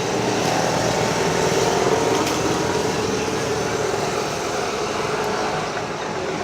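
Steady roar of passing vehicles, swelling a little about two seconds in and easing off toward the end.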